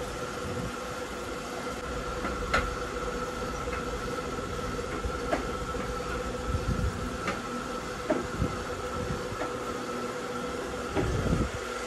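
A steady mechanical hum with two held tones, one low and one higher, like a fan or motor running. Scattered sharp clicks and a few soft low knocks sit over it, the knocks clustering near the end.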